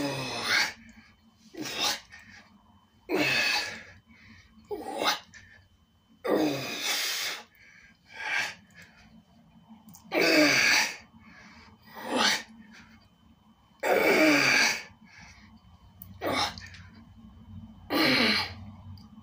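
A man breathing forcefully through a set of barbell biceps curls: sharp, noisy breaths, short and longer in turn, a pair every three to four seconds in time with the reps.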